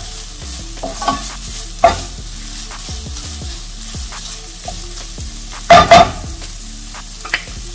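Ground chicken frying in a nonstick skillet with a steady sizzle while a wooden spoon stirs and breaks it up. The spoon scrapes the pan now and then, loudest in two quick strokes about six seconds in.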